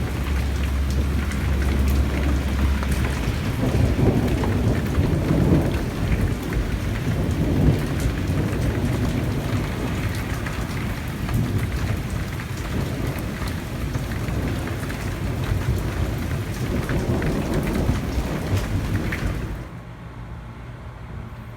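Heavy rain pouring down in a severe thunderstorm, with thunder rumbling in low swells a few seconds in and again near the end. The downpour drops off suddenly near the end.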